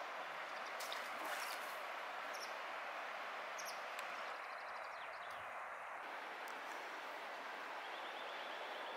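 Steady rushing of river water, with a few short bird chirps and trills over it.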